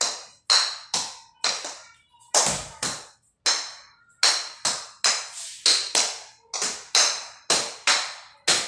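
Ping-pong ball being struck repeatedly with a paddle: sharp, hollow taps about two to three a second, unevenly spaced.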